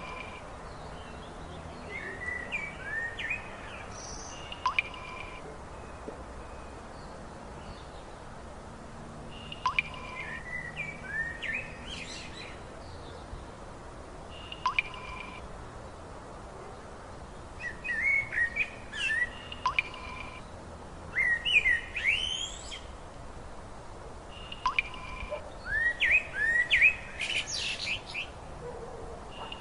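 Small birds chirping and singing: clusters of short, rising whistled notes, busiest in the second half, over a steady background hiss. A sharp click with a brief held tone recurs about every five seconds.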